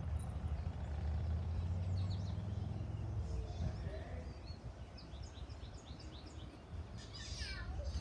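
Small songbirds chirping and calling in short high notes, more of them from about two seconds in, with a quick falling run of notes near the end, over a steady low rumble.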